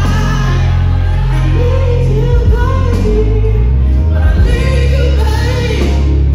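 A woman singing live into a microphone over loud backing music with a heavy, steady bass, played through a concert sound system.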